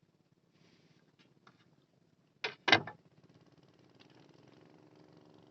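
Two sharp knocks about a third of a second apart, followed by a faint steady mechanical hum that slowly grows.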